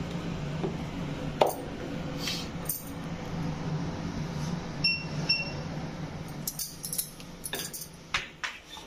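Dough ball being pressed flat and a wooden rolling pin knocking and rolling on a floured board, with scattered sharp knocks and two short light clinks about halfway. A steady low hum runs underneath.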